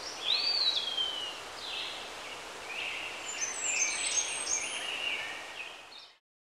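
Birds calling and chirping over a steady outdoor hiss, with high whistled notes and glides, one of them a long falling whistle near the start. The sound fades out about six seconds in.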